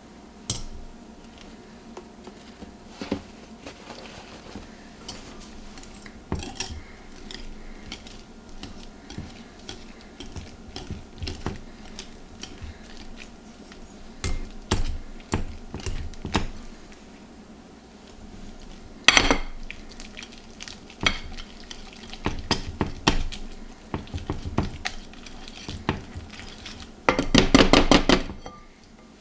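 Kitchen utensils clinking and knocking against bowls and dishes in irregular bursts, with a loud clatter about two-thirds of the way through. Near the end comes a short run of rapid strokes against a bowl, as when stirring or mixing.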